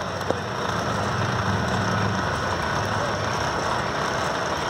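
Steady low outdoor rumble, with one sharp knock about a third of a second in.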